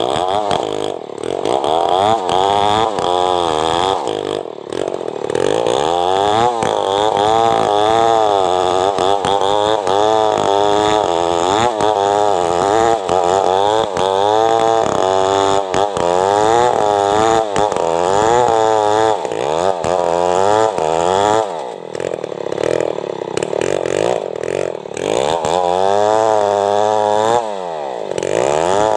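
Home-built chainsaw ripping lengthwise through a log under full load. The engine's pitch rises and falls about once a second as the cut loads and frees it. It sags briefly a few times, around 4 s, 21 s and 27 s in.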